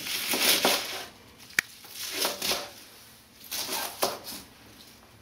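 Chef's knife cutting through kale leaves on a cutting board: crunching cuts in three short spells, with one sharp tap of the blade on the board about a second and a half in.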